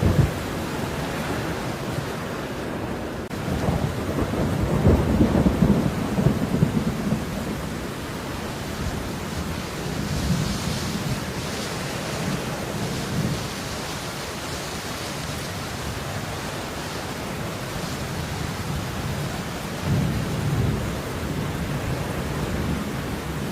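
Steady rain falling, with low rumbles swelling and fading beneath it, the strongest about four to seven seconds in and a shorter one near twenty seconds.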